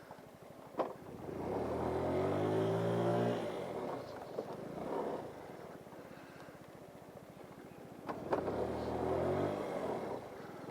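GY6 50cc scooter's single-cylinder four-stroke engine revving up under throttle twice, the pitch rising then falling away, with a quieter lull in between.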